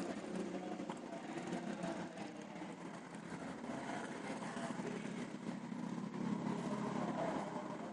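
1992 Isuzu Panther's 2300 cc diesel engine idling steadily.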